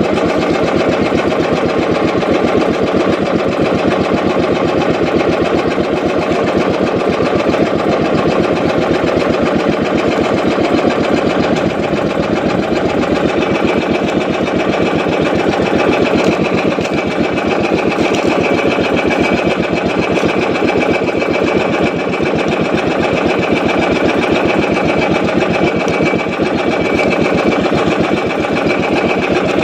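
Small boat engine running steadily, a fast, even putter of firing pulses throughout.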